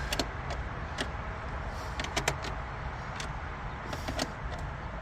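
Scattered small clicks and taps of a 7 mm nut driver and metal bolt against the car's dash trim as the bolt is tightened by hand, over a low steady hum.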